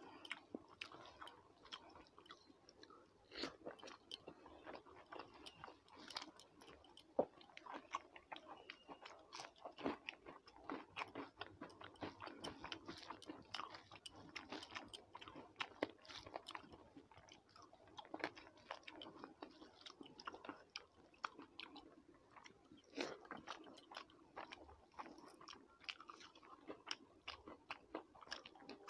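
Faint, close-up chewing and crunching of rice and crisp fried fish eaten by hand, with irregular wet clicks and smacks throughout.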